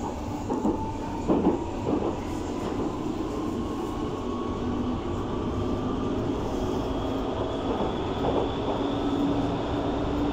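Berlin U-Bahn class H train accelerating away from a station into the tunnel, heard from inside the car: the traction motor whine rises slowly in pitch over a steady rumble. The wheels knock over rail joints a few times in the first two seconds and once more near the end.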